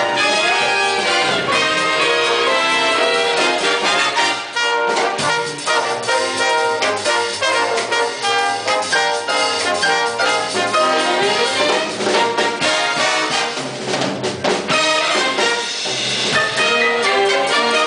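A live Army jazz band playing an up-tempo swing number, with brass (trumpets and trombones) carrying the tune over a steady beat.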